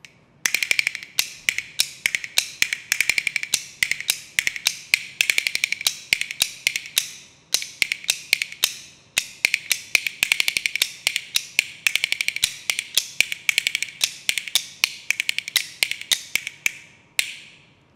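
Kuaiban bamboo clappers, large boards in one hand and a string of small slats in the other, played in a fast solo rhythm: rapid rolls of dry, ringing wooden clacks with accented strokes. They break off briefly about seven and a half seconds in and end on a single stroke near the end.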